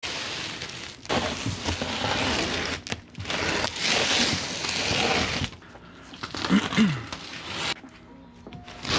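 Large cardboard shipping box scraping along a concrete driveway as it is pushed, in several long scraping slides with short pauses between them.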